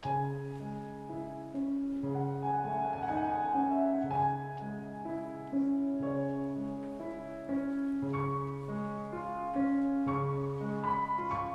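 Film score: slow, quiet piano music that comes in suddenly, a low note coming back about every two seconds under a gentle higher melody.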